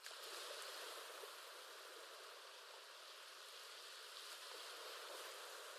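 Faint ocean-wave ambience: a soft, steady wash of surf noise that swells and eases slightly.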